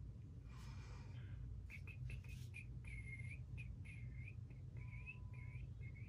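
A person softly whistling a tune to herself: a string of short, single-pitched notes with small bends, starting about two seconds in.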